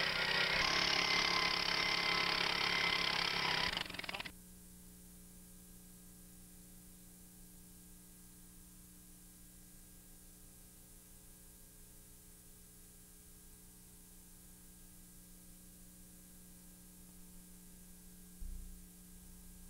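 The engine of a two-man power auger running loud for about four seconds, then cutting off suddenly. After that comes the low hiss and steady hum of blank videotape, with a brief low thump near the end.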